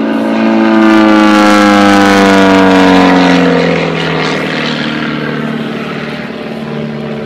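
Pitts Special S1-S biplane's 180-horsepower engine and propeller heard close up from the cockpit, loud and steady at first, its pitch sinking steadily and its level easing off as the aircraft pulls up into a steep climb and slows.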